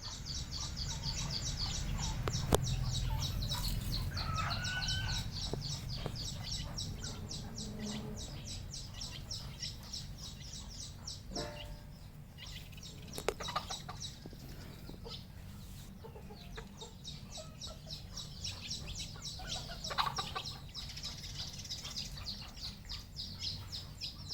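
Red junglefowl clucking and calling, with a few short rising and falling calls, over a high, rapidly pulsing chirr and occasional sharp clicks.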